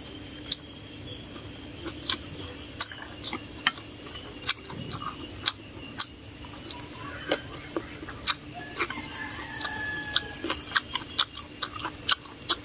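A person eating instant noodles up close: chewing with short, sharp wet mouth smacks about once or twice a second, coming closer together near the end.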